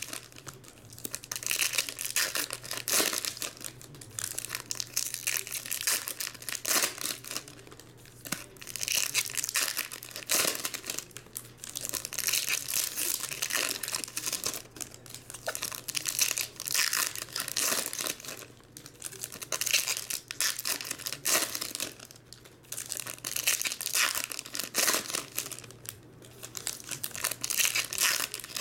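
Foil wrappers of Topps Chrome baseball card packs crinkling and tearing as packs are ripped open one after another, in repeated uneven bursts.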